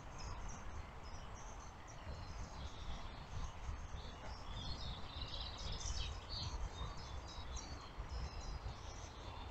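Small birds chirping and singing among the trees in short, repeated calls, most of them around the middle, over a faint low rumble.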